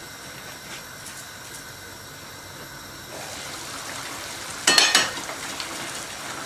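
Deer curry simmering in an aluminium pot on a gas stove, a steady bubbling that grows a little louder about three seconds in as the pot is uncovered. Near the five-second mark comes a brief, loud clatter of metal on metal.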